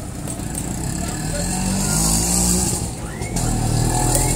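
A motor vehicle engine running close by, growing louder over the first two seconds, easing off briefly just past three seconds, then picking up again.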